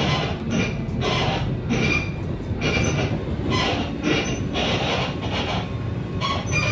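A bus's body and fittings creaking and squeaking over and over as it drives, like an old cart, over the low rumble of the running bus. The squeaks come about every half second to a second, some with a thin high squeal.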